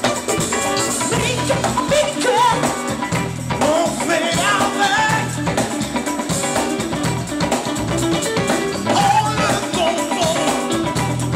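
Funk band playing live: drum kit and bass guitar keeping a steady groove, with singing over them.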